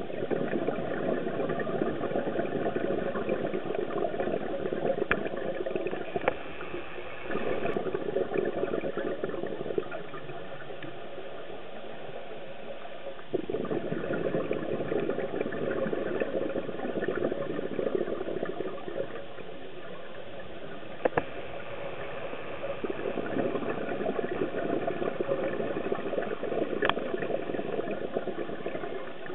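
Scuba diver's exhaled air bubbling from the regulator in long bursts every few seconds, with quieter gaps between breaths, heard underwater. A few sharp single clicks are heard.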